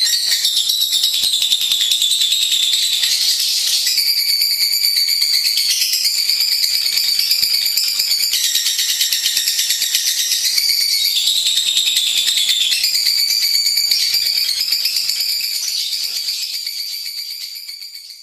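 Lovebird singing a long, unbroken, rapid high-pitched trilling chatter that shifts in pitch every second or two, fading out near the end.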